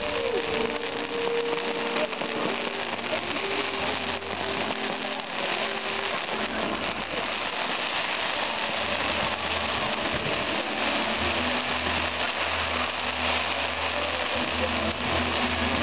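Firework fountains and pyrotechnics giving a dense, steady hissing crackle, with a low rumble underneath from about halfway through.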